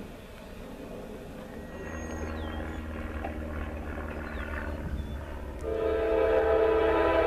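Approaching freight train's locomotive horn, several notes sounding together: faint from about two seconds in, then a loud long blast from about five and a half seconds in, over a low rumble of the train.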